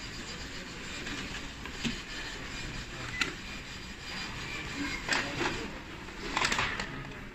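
Epson L5290 inkjet printer's mechanism running with a steady low hum, with a few short clicks and knocks, the loudest about six and a half seconds in.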